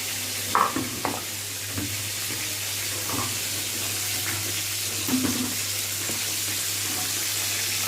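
Chicken leg pieces frying in hot oil, a steady sizzle, with a few short soft knocks of a utensil.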